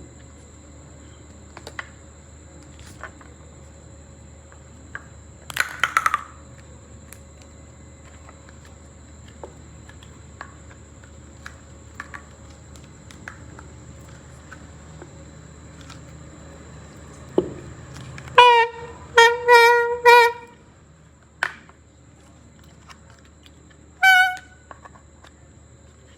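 A homemade horn blown in a few short toots on one steady, buzzy pitch, then one higher toot near the end. Clicks and rustling from handling come before the toots.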